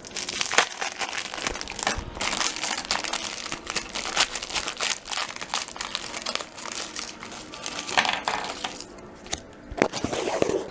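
Clear plastic wrapper of a fortune cookie crinkling and crackling as it is worked and torn open by hand, with a few sharper snaps near the end as the cookie is broken.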